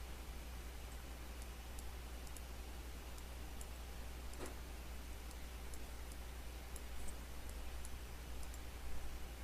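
Computer mouse clicking, scattered, faint ticks, over a steady low electrical hum and hiss.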